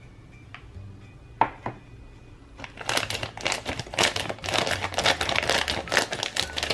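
Scissors cutting open a thin plastic bag of kinetic sand, the plastic crinkling with quick snips, starting nearly three seconds in after two light knocks.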